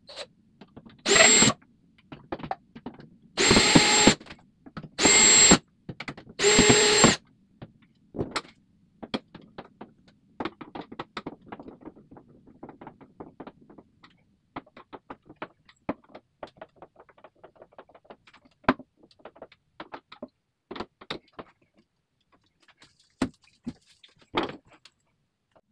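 Power drill running in four short bursts, driving screws. After that come scattered light clicks and knocks of handling tools and hardware.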